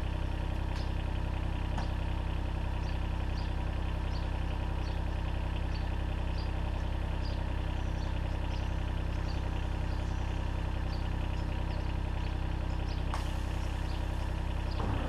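Engine idling steadily, with faint ticks about twice a second. A hiss joins in about two seconds before the end.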